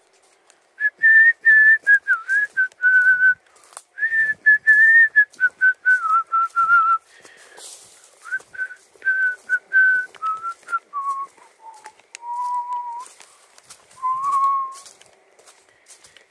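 A man whistling a slow tune, one clear note at a time, the melody drifting lower toward the end. Short crunches of footsteps on a leaf-littered dirt path fall between the notes.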